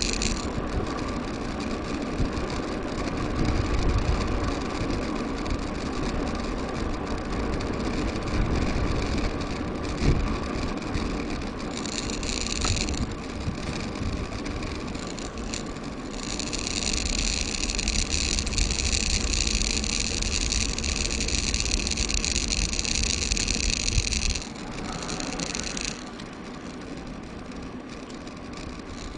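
Wind rumble on a bike-mounted action camera with tyre and road noise from a mountain bike riding along, and an occasional knock. A high buzz comes in about twelve seconds in, then again from about sixteen seconds until the sound drops quieter near the end.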